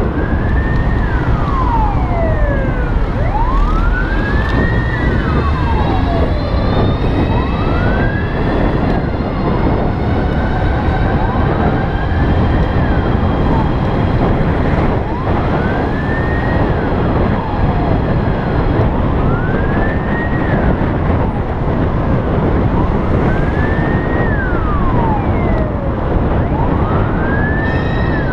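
An emergency vehicle's siren wailing, each cycle rising and then falling in pitch, about every four seconds, over steady low wind and road rumble.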